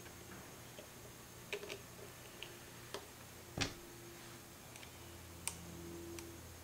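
Faint, scattered small clicks and taps of metal ring terminals being handled onto the tilt-and-trim relay's terminal stud by hand. The sharpest click comes a little past halfway.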